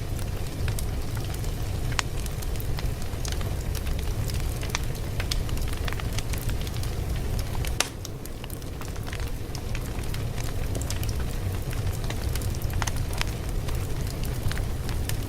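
Fire crackling: a steady low rumble with frequent sharp pops, and one louder pop about eight seconds in, after which the sound is a little quieter for a few seconds.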